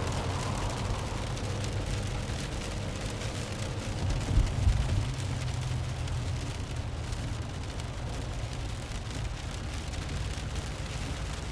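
Designed sound effect from the Krotos Genesys sound pack: a continuous low rumble with a hiss over it, swelling louder about four seconds in.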